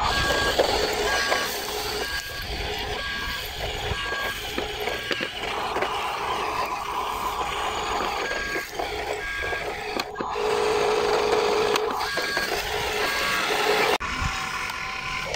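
RC dump truck's electronic reversing beeper: short beeps at two pitches, about two a second, in several runs that stop and start again, over a steady mechanical noise.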